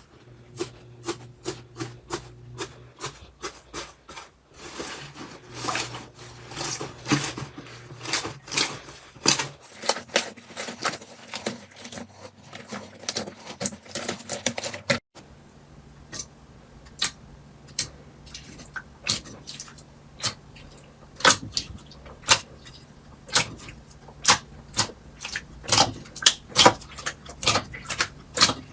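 Slime being squeezed and poked by hand, giving a steady stream of irregular sticky clicks and pops.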